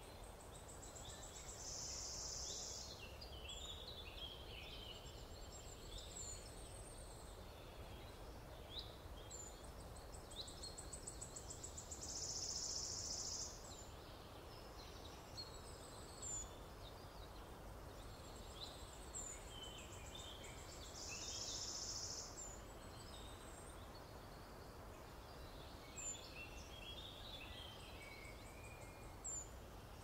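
Several songbirds singing: short high chirps and warbled phrases, with a buzzy high trill of just over a second that comes three times, over a faint low steady rumble.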